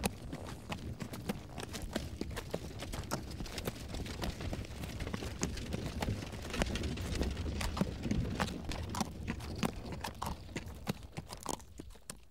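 A horse walking on a field, its hooves clip-clopping in a steady stream of knocks. The hoofbeats fade away near the end as the horse moves off.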